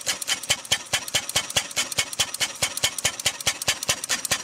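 Benz Patent-Motorwagen's single-cylinder four-stroke engine running steadily with a rapid, even clatter, firing every time rather than hit-and-miss.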